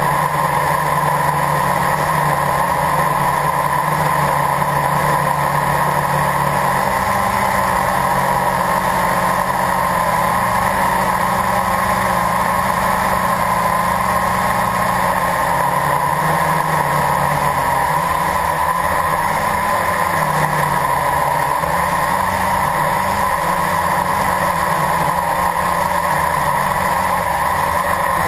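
Blade 350 QX quadcopter's brushless motors and propellers humming steadily in hover, heard close up from the camera on the craft. The low part of the hum shifts in pitch now and then as the motors adjust.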